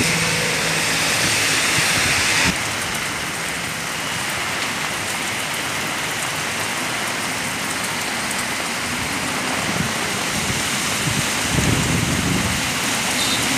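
Heavy rain pouring onto a wet road, a steady hiss, which turns slightly quieter about two and a half seconds in. Near the end, a vehicle passes with a low rumble through the wet road.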